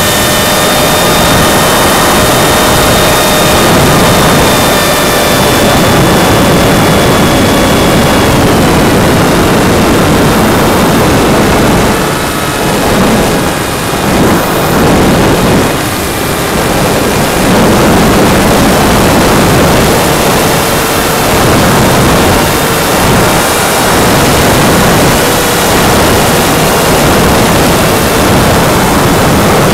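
Electric motor and propeller of a Go Discover FPV plane, upgraded with a bigger motor and ESC, running in flight under a steady rush of air over the onboard camera. The motor whine sags in pitch and fades about eight seconds in, dips in loudness for a few seconds after, and comes back fainter and lower near the end.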